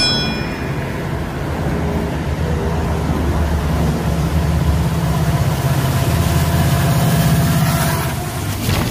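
Diesel locomotives of a Norfolk Southern intermodal train approaching at track speed, a steady low engine rumble that grows louder, peaks about seven seconds in, and starts to fall off as they pass beneath.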